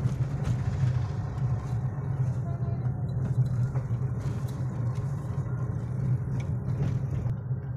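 A car's engine and tyre noise, heard from inside the cabin while driving: a steady low drone.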